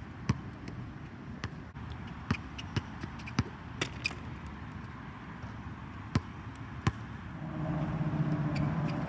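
Basketball bouncing on a hard outdoor court, in irregular single bounces and a quick pair of bounces. Near the end a steady low hum sets in.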